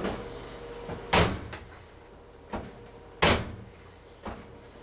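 Whirlpool front-load washer door being shut and opened, with two loud clunks about two seconds apart and lighter knocks between. It swings and closes freely on its newly replaced hinge instead of sagging.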